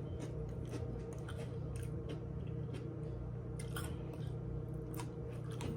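A person chewing a mouthful of tuna sub: wet squishing and small mouth clicks, over a steady low hum.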